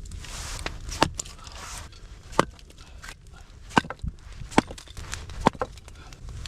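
A series of sharp knocks, about five of them, spaced roughly a second apart, with a rustling crunch during the first two seconds.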